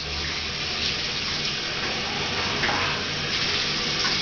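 Water running steadily in a bathtub, splashing over a wet puppy's coat as it is rinsed.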